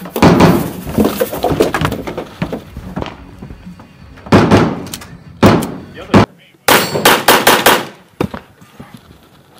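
AK-74 rifle in 5.45×39 being fired at targets: a loud clatter of shots in the first few seconds, single shots about a second apart in the middle, then a fast string of about seven shots near the end.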